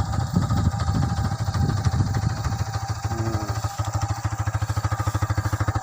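Yamaha Scorpio Z single-cylinder motorcycle engine driving a homemade mini buggy, running with an even, rapid beat. It is rougher and louder in the first couple of seconds, then settles into a steady rhythm.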